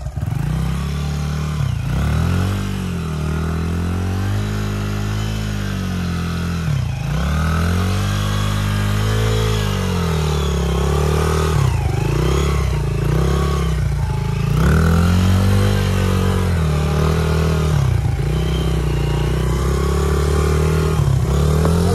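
Honda XR dirt bike's single-cylinder four-stroke engine revving up and down over and over as the bike is ridden through mud in first gear, the revs rising and falling every two to four seconds.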